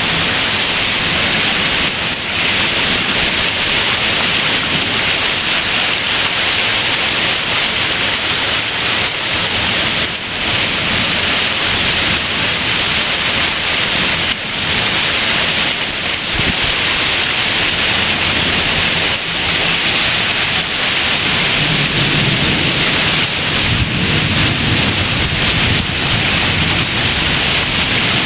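Heavy rain pouring down in a steady, dense hiss, with a low rumble rising under it about three-quarters of the way through.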